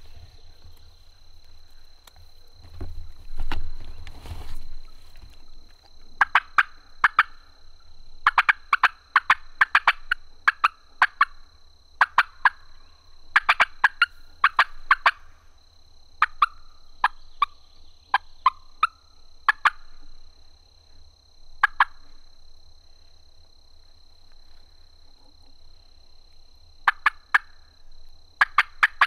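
Osceola wild turkey gobblers gobbling loudly again and again, each gobble a rapid rattling burst, starting about six seconds in and repeating with short gaps.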